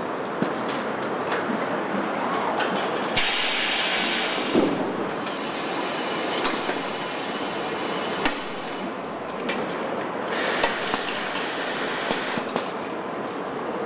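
Car assembly-line machinery: a steady mechanical noise with sharp clanks and clicks, and two loud hisses of about two seconds each, a few seconds in and again near the end.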